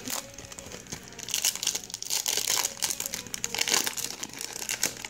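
A Bowman Chrome trading card pack's wrapper crinkling in the hands as it is opened, a dense run of crackles that thickens from about a second in.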